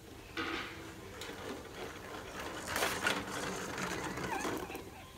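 A baby making raspy, rattling noises with his voice and mouth, louder about three seconds in, with a few small squeaky glides near the end.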